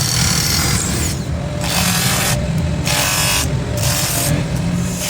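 Power tool motor running with a steady hum, overlaid by harsh high-pitched noise that comes and goes about once a second, as metal is worked against it.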